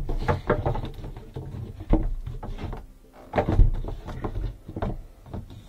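Dishwasher drain hose and power cord being pulled through a hole in a wooden cabinet: irregular rustling, scraping and knocking of plastic hose and cord against the wood, with louder knocks about two and three and a half seconds in.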